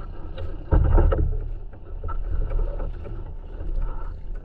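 Sea water slapping and sloshing against the hull of a small outrigger fishing boat, with a low rumble throughout and a louder slap about a second in.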